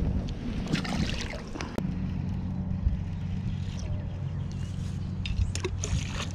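A steady low hum runs throughout, with scattered clicks and rustles of handling. Near the end a cast rattle trap lure splashes into the water.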